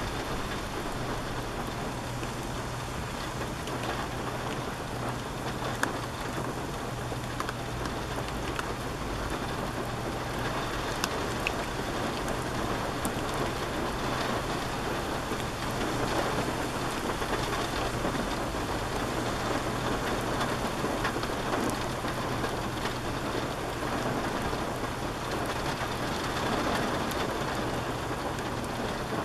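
Steady rain falling on shallow water, an even hiss with a few sharper drop ticks. A steady low hum runs underneath.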